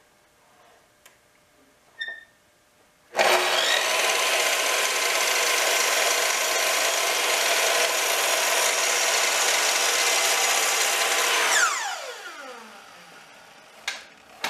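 Makita sliding miter saw starting abruptly about three seconds in and running for about eight seconds as it trims the end of a board square. It then winds down with a falling whine once the trigger is released.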